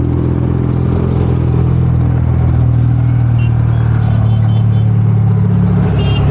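A motor vehicle's engine running at a steady, even pitch, close by. A few faint short high beeps come through now and then.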